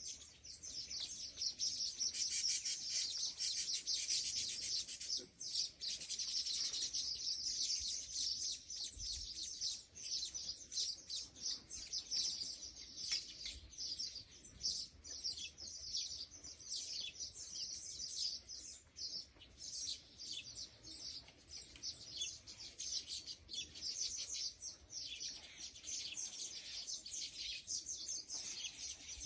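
Small birds chirping rapidly and continuously, a dense run of short high-pitched chirps with no pause.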